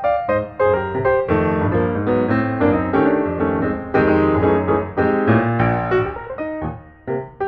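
Piano music: struck notes and chords in a flowing, steady passage.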